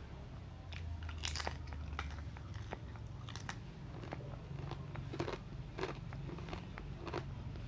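Close-up biting and chewing of crunchy fried street food: a run of irregular crisp crunches.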